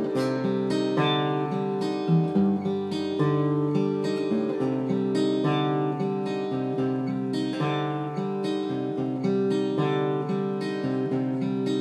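Acoustic guitar played solo, strummed in a steady, even rhythm with no singing.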